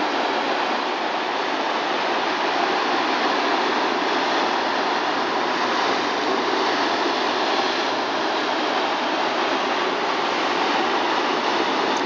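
Stormy sea surf breaking and churning over shoreline boulders: a loud, steady rush of foaming water, with no single wave crash standing out.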